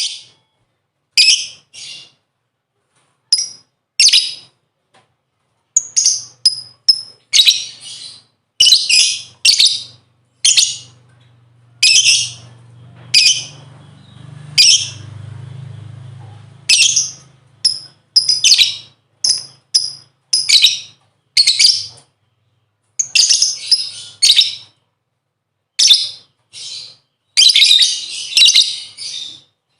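Lovebird chirping: short, shrill calls in irregular bursts, coming in quicker runs near the end.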